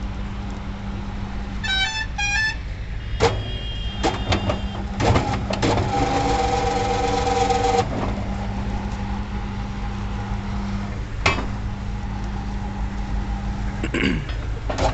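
Electric rebar bending machine humming steadily while steel reinforcing bars are bent around its rotating disc, with sharp metal knocks now and then. Two short beeps about two seconds in, and a louder pitched drone for about two seconds near the middle.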